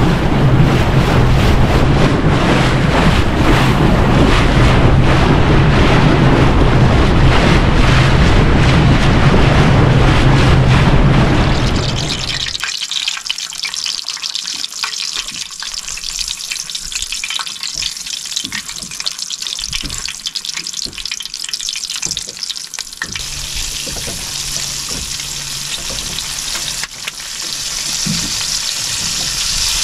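A boat under way: its engine hums steadily under wind and water noise. About twelve seconds in this gives way to strips of fish sizzling in oil in a frying pan, the sizzle growing louder near the end.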